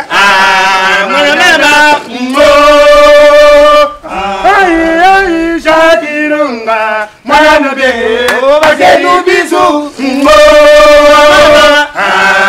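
A group of voices chanting a song loudly, in phrases of about two seconds with long held notes and short breaks between them.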